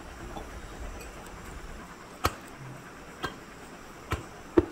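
Four sharp clicks in the second half, roughly a second apart with the last two close together, over a faint steady hiss.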